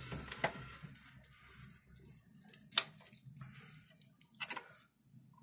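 Handling noise: scattered small clicks and rustles, with one sharp click just before three seconds in and a few more near the end, over a low steady hum that fades out about two seconds in.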